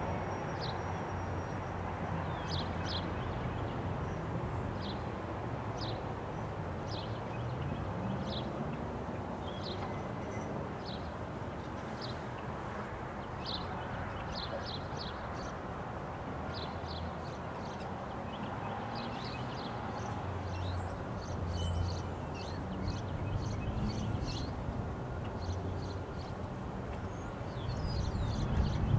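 Low, steady rumble of the freight train's diesel locomotives approaching slowly, mixed with road vehicles driving over the level crossing, one of them speeding up about ten seconds in. Small birds chirp in short notes throughout.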